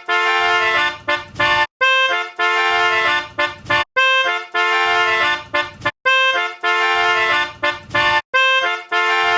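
A short melody played on a buzzy, overtone-rich instrument, the same phrase repeating about every four seconds.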